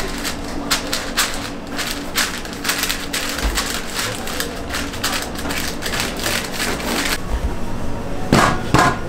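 Parchment paper crinkling and rustling as it is pressed down by hand over soft cheese in a stainless steel pan, over a steady low hum. Near the end, sharper knocks as the metal pan is handled.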